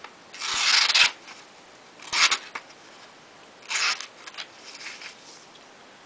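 Small blade of a Victorinox Spartan pocketknife cutting a sheet of paper in three short strokes, the first the longest and loudest. The out-of-the-box edge cuts the paper poorly.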